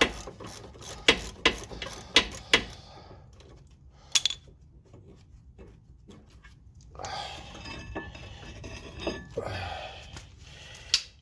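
Hand tools and metal brake parts clinking and clattering on a car's rear brake assembly. Several sharp metal clicks come in the first couple of seconds and a single loud clink about four seconds in. Rummaging and scraping follows from about seven seconds in, with another clink near the end.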